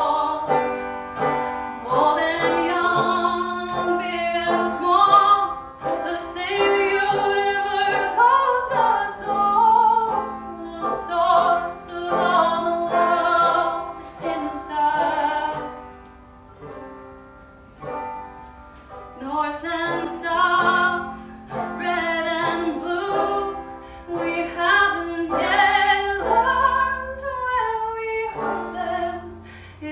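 A woman singing a folk song to her own banjo accompaniment, the banjo picked steadily under the melody. A quieter stretch comes about halfway through.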